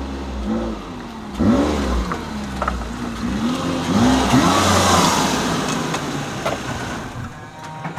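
Toyota Tacoma pickup driving, its engine pitch rising and falling several times over a steady low rumble as it revs. Road and tyre hiss swells toward the middle and then eases.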